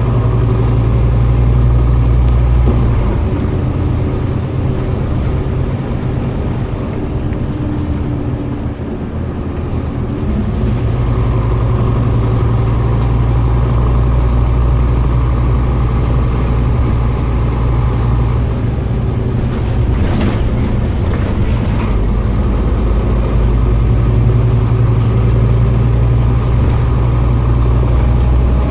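Scania OmniCity single-deck bus heard from inside the cabin while driving: a low engine drone that eases off for several seconds, then pulls strongly again about a third of the way in. A few short rattles or knocks come around two-thirds of the way through.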